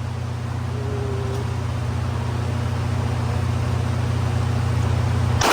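A steady low rumbling hum that grows slowly louder, ended by a single sharp bang, after which the hum cuts off.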